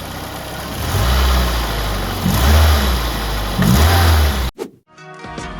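Nissan Serena C24's 2.0-litre engine, running on a freshly fitted air filter, idling and then revved in three blips that rise and fall. The sound cuts off suddenly about four and a half seconds in.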